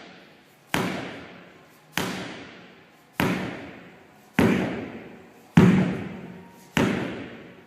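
A 10-pound sledgehammer striking in a steady rhythm, six heavy blows about 1.2 seconds apart, each followed by an echoing tail.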